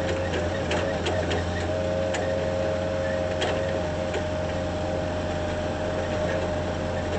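Moffett truck-mounted forklift running and turning: a steady low engine rumble with a steady high whine over it. A few light rattles come in the first few seconds.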